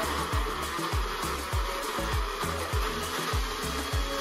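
Moulinex Eco Respect blender's 800 W motor running steadily, its stainless steel blades chopping pieces of cooked beetroot.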